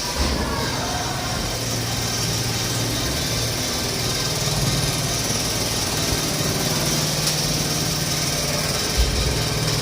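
A small engine running steadily, its low hum shifting in pitch a couple of times, with a single short knock near the end.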